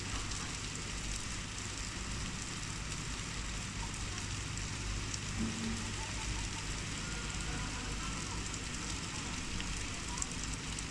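Steady downpour of rain, an even hiss of falling water with a low steady rumble underneath.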